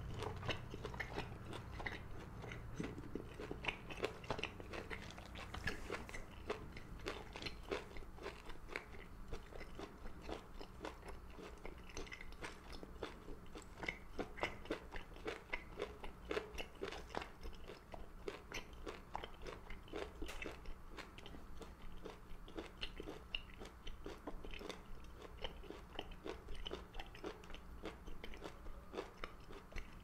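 Close-miked chewing of a mouthful of seaweed soup's seaweed: a steady run of small crunches and clicks, several a second.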